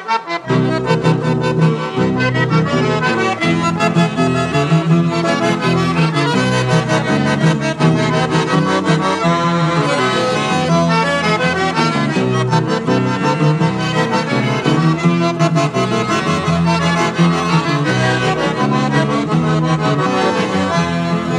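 Instrumental introduction of a gaúcho song: an accordion (gaita) plays a busy melody over a bass line that comes in about half a second in.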